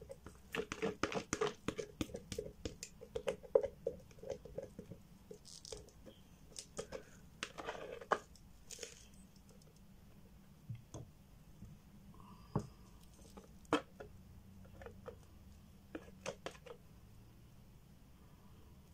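A stirring stick scraping and tapping inside a flexible plastic mixing jug as the last of the mixed resin is scraped out. It gives irregular clicks and plastic crinkling, busy for the first half and then only sparse ticks.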